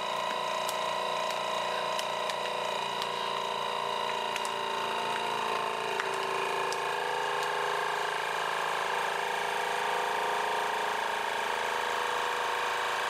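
Geryon countertop vacuum sealer's pump running steadily as it draws the air out of a food bag, a constant motor hum whose pitch shifts slightly around the middle as the bag pulls tight around the food.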